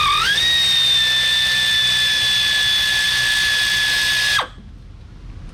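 Power drill running at a steady whine for about four seconds, backing out a brake rotor retaining screw; the pitch rises quickly at the start and falls away as the trigger is released.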